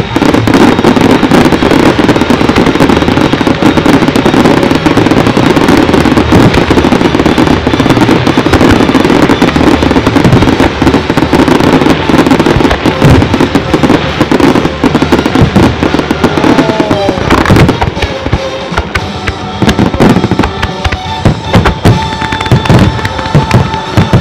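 A fireworks show firing a dense barrage: shell bursts and bangs overlap into one continuous din for about the first two-thirds. Then it thins out into separate bangs with short gaps between them. The show's music plays underneath.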